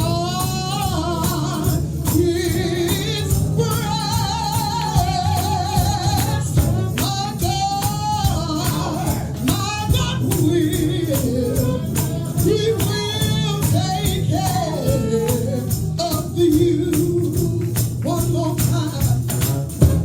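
Live gospel music: a singer's drawn-out, wavering vocal runs with heavy vibrato over a steady band accompaniment and an even tambourine beat.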